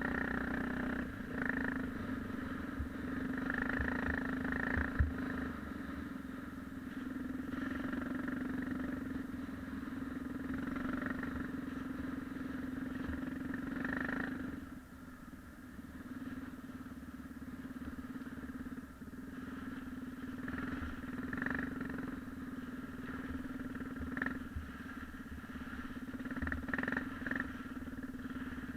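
Yamaha XT 600's single-cylinder four-stroke engine running at a fairly steady speed, easing off briefly about halfway through before carrying on.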